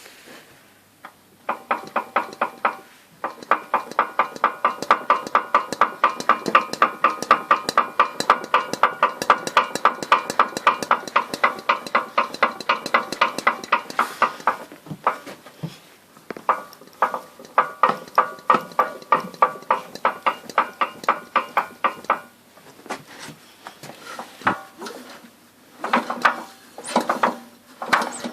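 Engine knocking: a rapid, regular metallic tapping that goes on for long stretches. It drops away for a second or two about halfway through and again a few seconds before the end, then starts up again.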